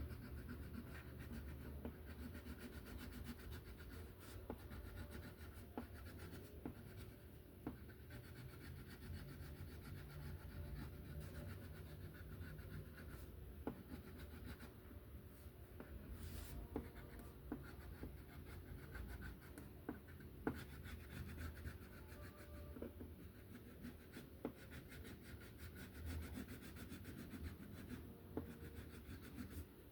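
Faint, continuous scratching and rubbing of a colouring tool on paper as an area is coloured in with yellow.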